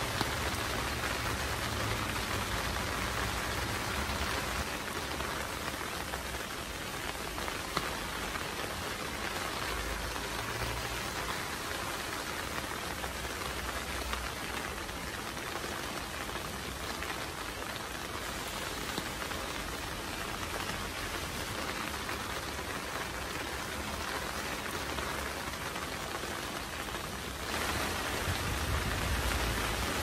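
Rain falling steadily, a little louder near the end.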